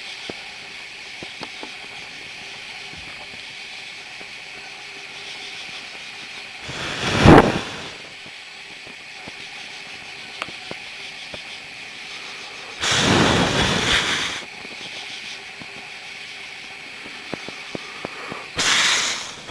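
Steady night chorus of crickets and katydids with faint crackling from a small burning flame, broken three times by loud rushing hiss bursts: a short one about seven seconds in, a longer one around thirteen seconds, and a brief one near the end.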